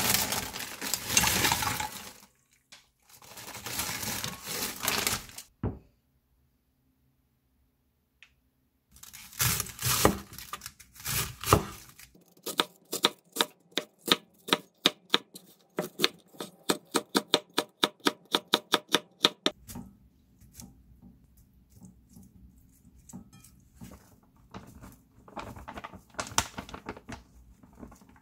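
A cleaver slicing a cabbage wedge on a wooden cutting board: a quick, even run of knife strikes, about four a second, for several seconds in the middle. Before that, crinkly plastic packaging rustles as a packet is torn open.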